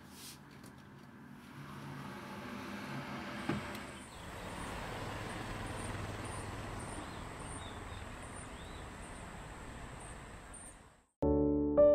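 Steady city traffic noise, with a single click a few seconds in. The noise cuts off suddenly near the end, and soft piano music begins.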